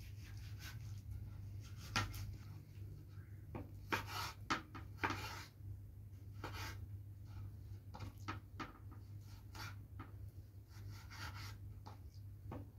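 Kitchen knife cutting raw chicken on a wooden cutting board: irregular taps and scrapes of the blade against the board, loudest about two seconds in and again around four to five seconds in.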